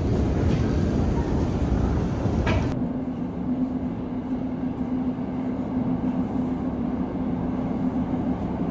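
Moscow metro: first the loud rumble of a running escalator, which gives way abruptly about three seconds in to the inside of a moving metro car. There the wheels rumble steadily under a constant motor hum.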